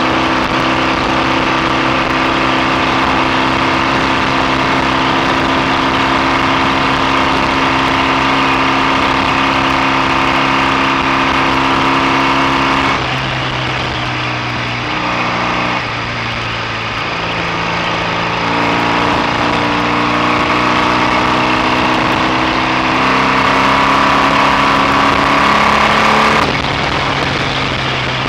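BSA A65 650cc parallel-twin engine running on the road at a steady speed. About halfway it drops in pitch as the throttle is backed off, then steps back up through the gears and climbs again before easing off near the end.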